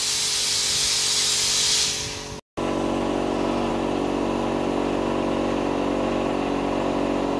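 A loud, steady hiss for about two seconds that cuts off abruptly, followed by a steady mechanical drone, like a motor running.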